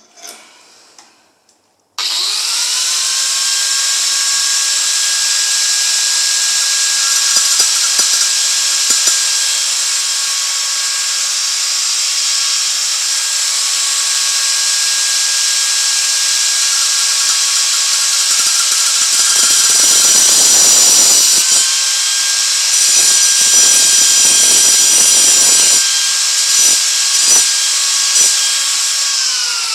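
A small high-speed power grinder switches on about two seconds in and runs with a steady high whine. It cuts into a bolt, with louder grinding passages about two-thirds of the way through, then is switched off and spins down with falling pitch near the end.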